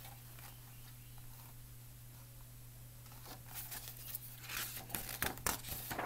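Paper pages of a picture book rustling and crinkling as the book is handled and a page is turned. The handling is hushed at first, then from about halfway there is a run of short, scratchy rustles.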